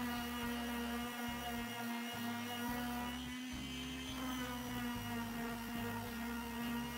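Electric square-pad palm sander running steadily while sanding a wooden board: a constant motor hum and whine, dipping slightly in pitch as it is pressed and moved.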